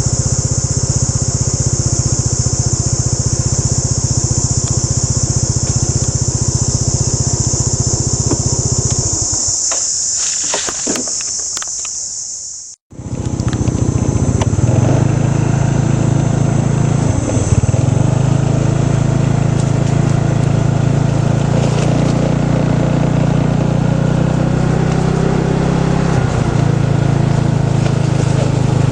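A vehicle engine running steadily under way, with a steady high-pitched hiss above it. About nine seconds in the engine fades away for a few seconds. It cuts out abruptly near the middle, then the engine is running again.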